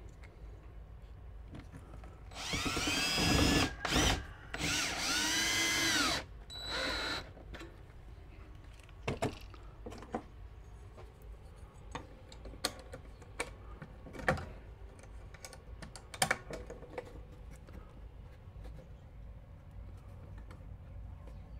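Cordless drill run in several short spurts over about four seconds, its whine rising and falling in pitch as the trigger is squeezed and eased, then one brief final spurt. Scattered light clicks and knocks of tools and parts being handled follow.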